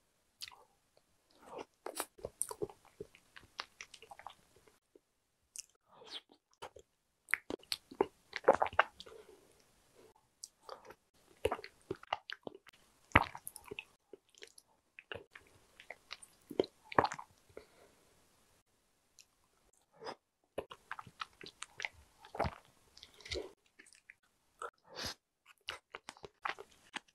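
Close-miked eating sounds of soft, creamy pudding taken by spoon: wet mouth smacks and chewing in short clusters every second or two, with small clicks between them.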